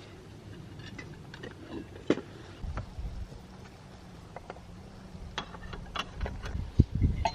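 Scattered light clicks and knocks, a cluster of them a little over halfway through, over a faint low steady hum, with a few dull thumps near the end.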